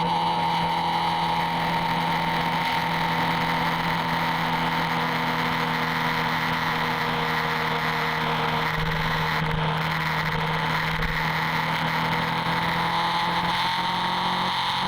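Motorcycle engine running while riding, holding one steady note with little change in pitch or loudness.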